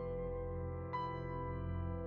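Slow ambient new-age background music: soft held chords, with a new note struck about a second in that rings on.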